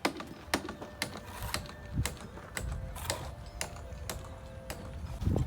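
Sharp knocks of stone-masonry work, tools and stones striking as foundation stones are laid, at roughly two a second.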